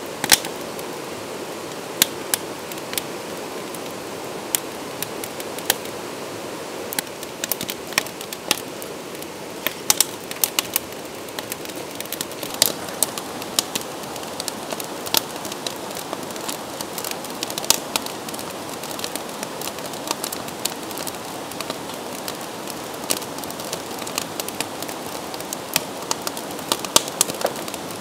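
Wood fire crackling in a steel fire pit, with sharp irregular pops scattered throughout, over the steady rush of a stream.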